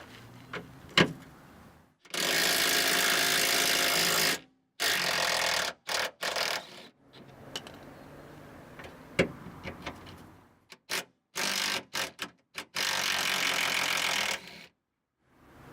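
Impact wrench rattling in bursts as it undoes two 10 mm bolts: a long burst of about two seconds, then shorter on-off bursts, with a few light clicks between.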